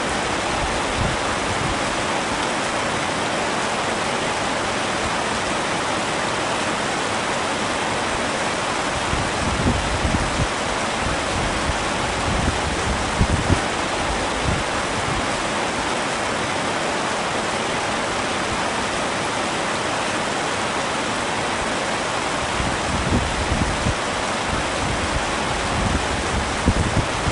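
Heavy rain falling steadily, a dense even hiss, with occasional brief low thuds.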